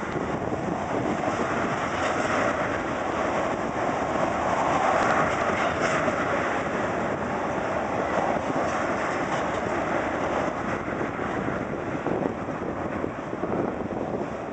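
Freight train of tank cars rolling past below, a steady rush of steel wheels on rail that swells slightly in the middle.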